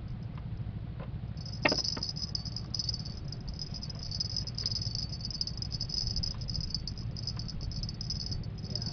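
An insect calling: a high, rapidly pulsing buzz that starts about a second and a half in and keeps going, over a low steady rumble. A single knock sounds just after the buzz begins.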